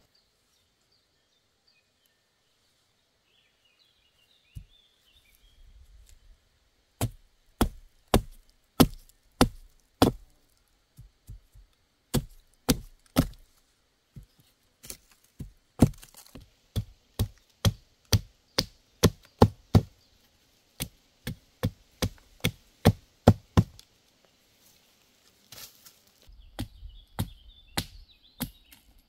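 Axe chopping a thin wooden stick held upright on a stump: sharp single blows, about one to two a second in runs broken by short pauses, starting a few seconds in.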